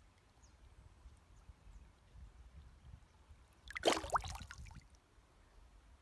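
Water sloshing and splashing as a freshly caught bass is held and moved at the surface of a creek, with one louder splash about four seconds in. A low rumble runs underneath.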